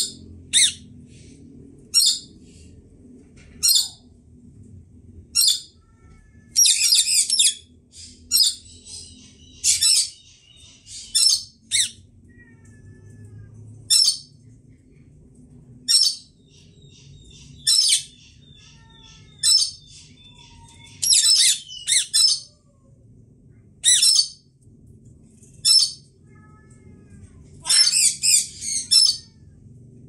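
Indian ringneck parakeets squawking: short, sharp screeches every second or two, sometimes two or three in quick succession, with fainter chirping of other birds behind.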